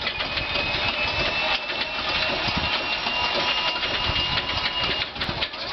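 Ilyushin Il-14T's ASh-82T fourteen-cylinder radial engine being turned over for its first start, propeller rotating slowly: an uneven mechanical clatter with a steady high whine that stops about five seconds in.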